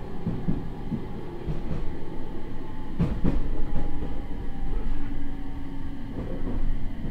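Onboard running sound of a JR East 701 series electric train with Mitsubishi IGBT-VVVF control and MT65 AC traction motors, slowing down: faint motor tones drift slowly downward in pitch over the steady wheel and track noise. A pair of knocks from the wheels comes about three seconds in.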